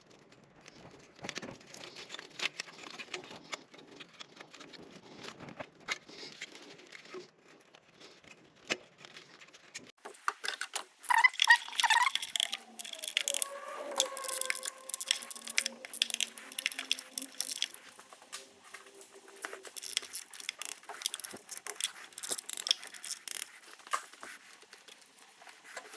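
Hands working a car engine's wiring harness back into place: scattered clicks, rattles and rustles of plastic clips and connectors, growing louder and busier about ten seconds in, with a brief squeak midway.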